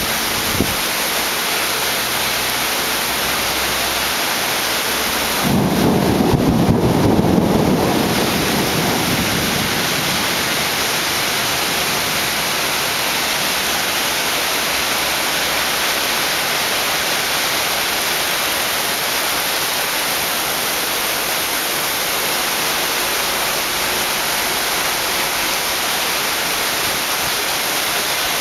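Heavy rain falling steadily, with a roll of thunder that breaks in about five seconds in and rumbles away over the next few seconds.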